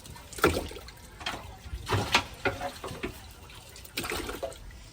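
Water splashing and sloshing in a few irregular bursts, as live bait fish are moved into a bait cage in the water.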